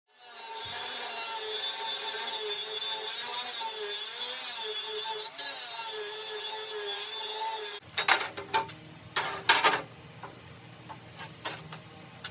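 A power tool running under load, its pitch wavering, then cutting off about eight seconds in, followed by a few scattered sharp knocks and clicks.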